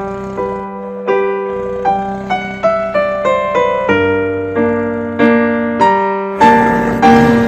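Background piano music: a gentle melody of single notes and chords struck about twice a second, each note ringing and fading.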